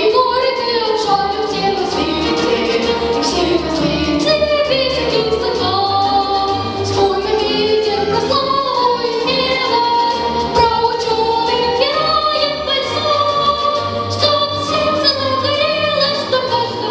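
A singer performing a song with accompaniment: a sung melody of held notes moving in steps, over low instrumental notes.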